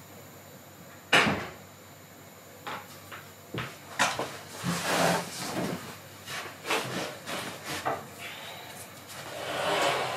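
Handling noises: a sharp knock about a second in, then a run of lighter knocks, bumps and scraping rustles.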